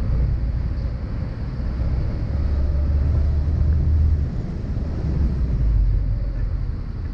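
Mini Cooper S Roadster's turbocharged 1.6-litre four-cylinder running while the car drives along, a steady low rumble mixed with road and wind noise.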